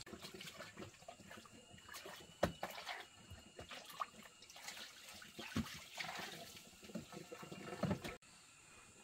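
Water splashing and trickling, with irregular knocks and clatter mixed in; it cuts off abruptly about eight seconds in.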